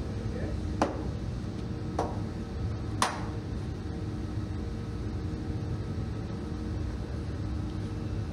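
Three sharp clicks about a second apart, the third the loudest: plastic fender liner push-clips being pressed into the wheel arch of a Toyota Corolla. A steady hum runs underneath.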